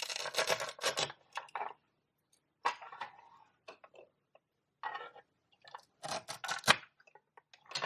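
Velcro tearing apart as toy potatoes held together with velcro are cut with a toy knife: about four short ripping sounds a second or two apart.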